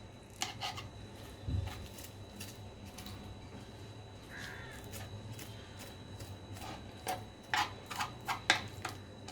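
Scattered light clicks and taps as the charred skin is picked off a fire-roasted eggplant by hand, with a cluster of sharper clicks near the end over a low steady hum.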